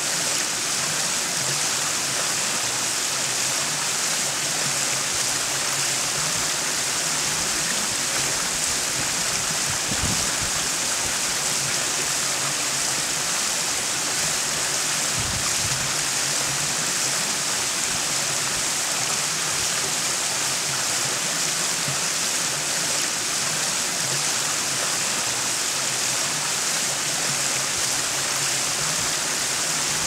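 Small garden waterfall: water spilling down a series of stone ledges into a naturalized rock hot-tub pool, a steady, even hissing rush and splash with no breaks.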